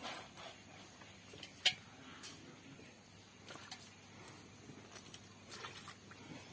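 Faint, scattered clicks and scuffs from a water buffalo feeding at a metal bowl and being hand-milked, with one sharper knock about a second and a half in.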